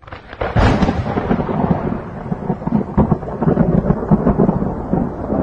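Thunder breaking with a sudden crack about half a second in, then rumbling on in uneven surges, over falling rain.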